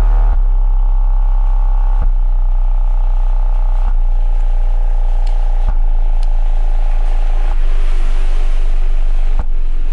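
A 12-inch subwoofer driven by a home-built SOCL power amplifier through a 4558 subwoofer filter, playing bass-heavy electronic music: a loud, deep, steady bass that shifts to a new note about every two seconds, with a short click at each change.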